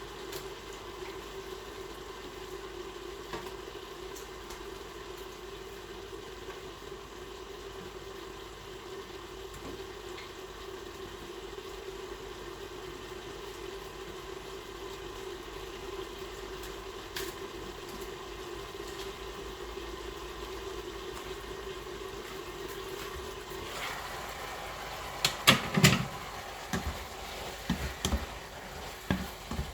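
Stir-fry food sizzling in a pan over a steady hum. About 25 seconds in, a spatula starts stirring, with loud clatters and knocks against the pan.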